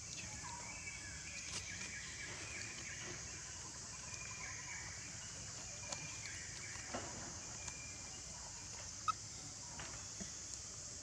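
Quiet outdoor ambience: a steady high hiss with faint, scattered chirping calls and a few soft clicks, the sharpest about nine seconds in.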